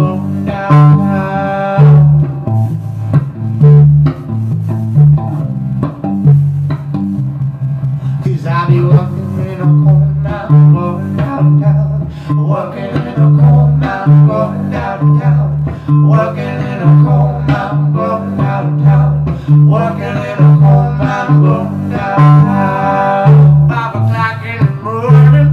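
Music with guitar and bass guitar over a steady, pulsing bass rhythm.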